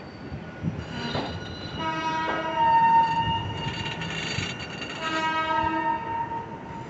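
Locomotive horn sounding two long blasts, the second starting about two seconds after the first ends, over the rumble of a train moving slowly on the track.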